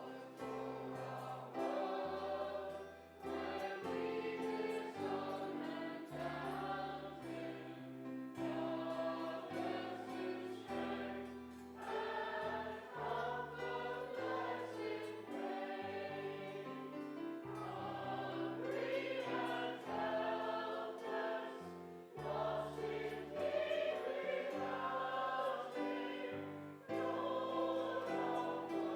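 A hymn sung by many voices together with steady instrumental accompaniment, the chords and bass changing about once a second.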